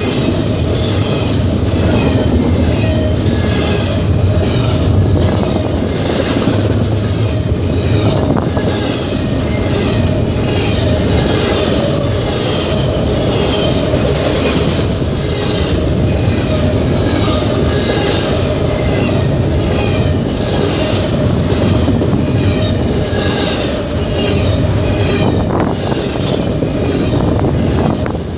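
Double-stack intermodal freight train rolling past close to the track: a steady, loud run of steel wheels on rail with regular clicks as the wheelsets cross the rail joints.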